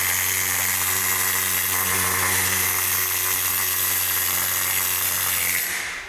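Air-powered hand tool running continuously on a bus wheel hub: a steady whirr with a high hiss and a low hum, dying away near the end.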